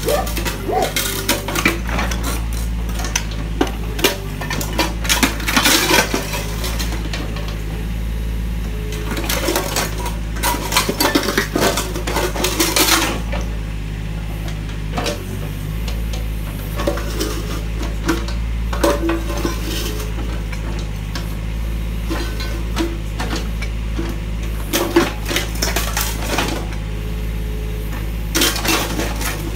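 Kubota mini excavator's diesel engine running steadily while its bucket crushes a ceramic toilet bowl: porcelain cracking and shards clinking against each other in clusters, densest in the first half and scattered later.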